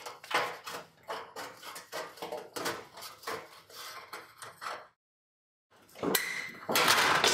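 Hand tin snips cutting thin aluminum siding sheet: a run of short crunching cuts, one after another, for about five seconds. After a brief pause, a louder metallic rattle of the sheet near the end.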